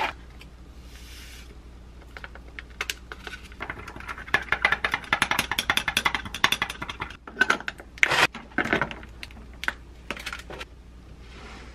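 A straw stirring kombucha drink in a tall glass tumbler, clicking rapidly against the glass, then a few louder clinks and knocks about eight seconds in.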